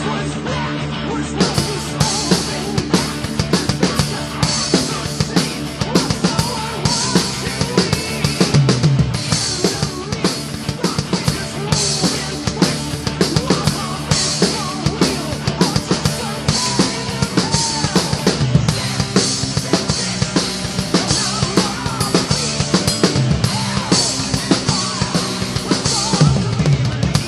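A drum kit played along with a heavy metal backing track: bass drum, snare and rim shots under cymbal strikes that repeat steadily, with the drumming setting in about a second in.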